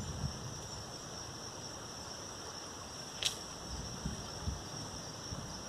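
Steady high-pitched insect chorus, with one short sharp click about three seconds in and a few soft low thumps soon after.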